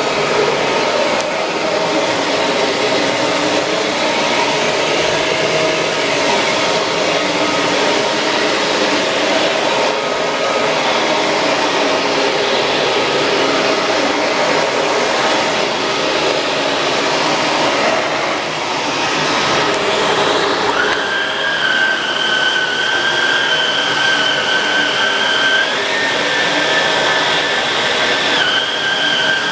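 Shark Rotator Pro Lift-Away NV500 vacuum cleaner running steadily. About two-thirds of the way through a high whistling tone joins the motor noise, and its pitch steps up briefly and then drops back near the end.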